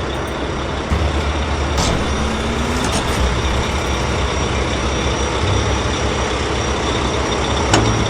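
Heavy truck engine running steadily with a low rumble, with two short sharp clicks, one about two seconds in and one near the end.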